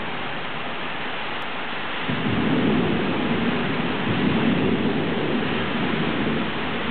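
Steady hiss of heavy rain, with a rumble of thunder that sets in suddenly about two seconds in, holds for some four seconds and dies away near the end.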